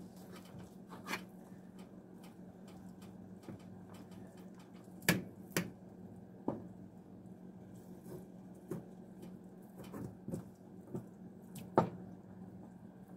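Hands pulling cooked chicken meat off the bone in a metal baking pan: scattered sharp clicks and taps against the pan, a pair of the loudest about five seconds in and another near the end.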